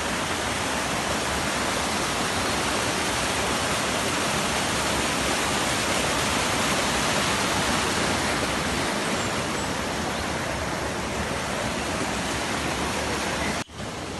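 Waterfall rushing: a steady, dense roar of falling water. Near the end it drops out for a moment and then carries on a little quieter.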